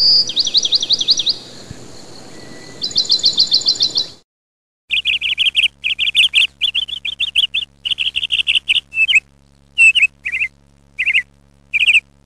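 Songbird singing: about four seconds of rapid trills of quick falling notes, then a short break, then phrases of sharp repeated chirps separated by pauses.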